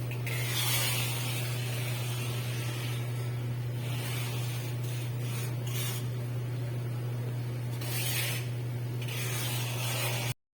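A steady low electrical hum under a hiss that swells and fades several times. It cuts off abruptly near the end.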